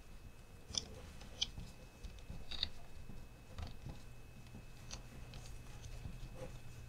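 A handful of light clicks and taps from small plastic parts of a TRX-4M mini crawler's front axle and steering link being handled and seated into the chassis, over a faint steady hum.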